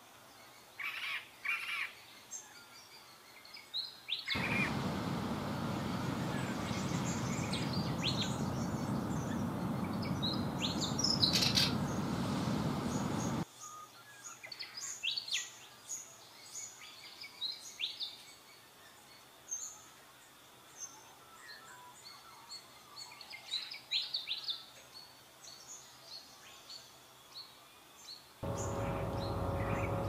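Wild birds chirping in short, scattered calls. From about four to thirteen seconds in, a louder steady rushing noise sits under the chirps. Near the end another steady background with a faint hum cuts in.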